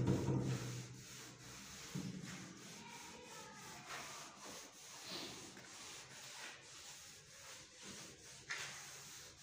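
A hand rubbing wet grain polish over a wooden door panel: repeated soft scuffing, wiping strokes, with a short louder low sound right at the start.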